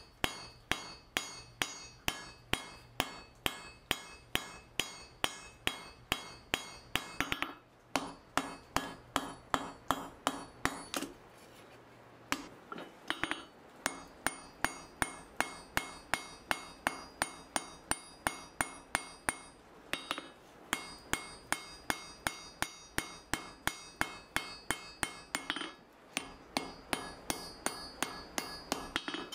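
Hand hammer striking a red-hot mild steel bar on an anvil, forging it in a steady rhythm of about three blows a second. Each blow rings briefly, and there are a few short breaks in the hammering.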